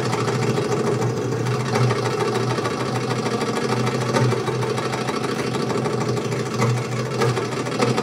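Egyptian belly dance drum solo music: a fast, continuous drum roll on the darbuka, with a few louder accented strokes.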